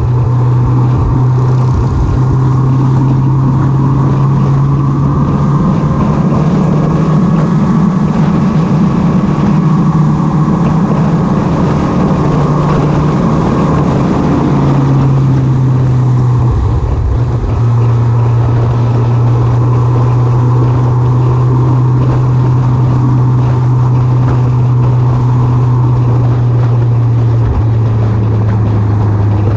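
Motorbike engine running at a steady cruising speed, with wind rushing over the microphone. The engine's hum drops a little about halfway through and again near the end.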